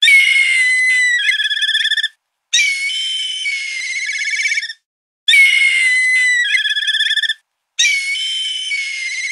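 Black kite calling four times, each call about two seconds long: a high whistle that slides down in pitch, then breaks into a fast quavering trill.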